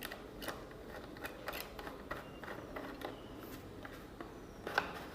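Small scattered clicks and light scrapes of hands and a screwdriver working the laptop's plastic rear service panel as it is unfastened and opened.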